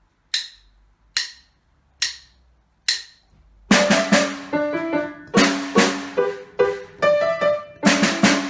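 Four evenly spaced sharp clicks, like drumsticks tapped together as a count-in. About halfway through, a brisk, lively piece starts, with quick, sharply struck notes and a piano.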